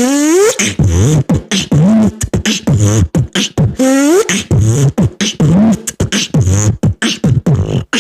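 Beatboxing: a rhythmic mouth-made beat of sharp clicks and hummed bass notes, with rising vocal sweeps repeated every couple of seconds, performed as an imitation of a zipper.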